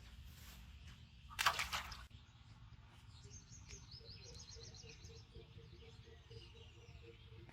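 Birds chirping outdoors: a rapid run of high repeated chirps, with a lower call repeating evenly alongside, over a steady low background rumble. About a second and a half in, a short loud rush of noise stands out as the loudest thing.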